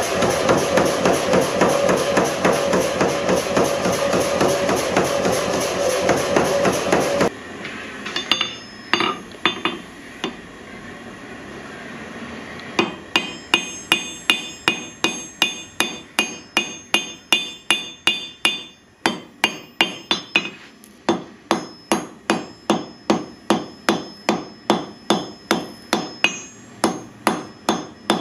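Power hammer pounding a red-hot spring-steel sword blank in rapid, even blows, stopping abruptly about seven seconds in. Then a hand hammer strikes the hot blade on an anvil: a few scattered blows, then a steady run of about two to three ringing strikes a second.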